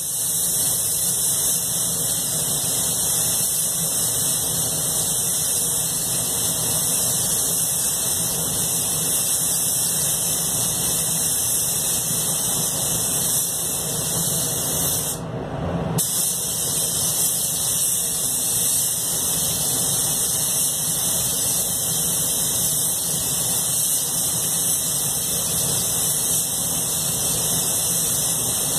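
Anest Iwata Classic Plus gravity-feed spray gun hissing steadily as compressed air atomizes paint, with a steady low rumble underneath. The trigger is released once about halfway through, cutting the hiss for about a second before spraying resumes.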